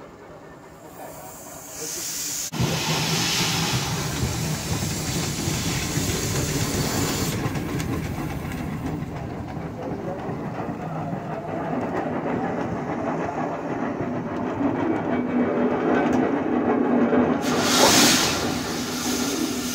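Steam hissing from a Peerless steam traction engine as its controls are worked. It starts about two seconds in, jumps suddenly to a loud steady hiss, and gives a stronger burst of hissing near the end.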